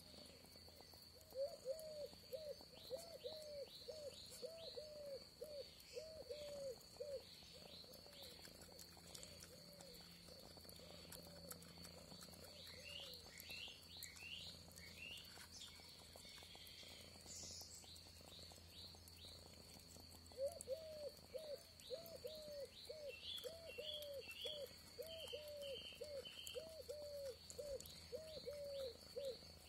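An animal call outside: short arched hooting notes repeated about two a second, breaking off about twelve seconds in and starting again about twenty seconds in, with small birds chirping higher up and a steady thin high tone underneath.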